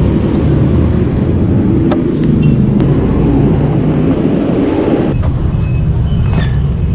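Steady low rumble of road traffic, vehicle engines running close by.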